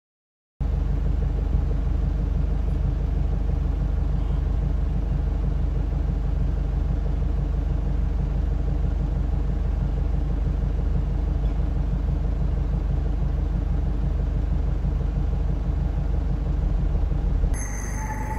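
Steady low rumble heard from inside a car in city traffic. About a second before the end it gives way to quieter street noise with a faint steady tone.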